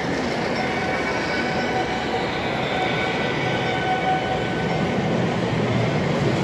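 Model freight train rolling across a model truss bridge: a steady rumble of wheels on track with a faint whine over it.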